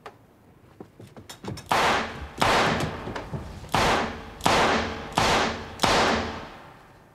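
A few light clicks and knocks, then six gunshots fired indoors at uneven intervals over about four seconds, each ringing out briefly in the small room.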